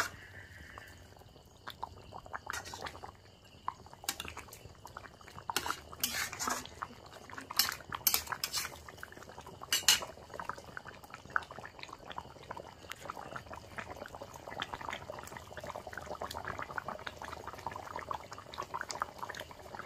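Steel spatula knocking and scraping against a metal kadai while chicken curry is stirred, with sharp clinks through the first ten seconds. After that the gravy simmers with a fine bubbling patter.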